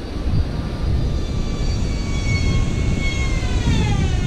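Wind rumbling on the microphone, with a motor's thin high whine that holds steady and then falls steeply in pitch near the end.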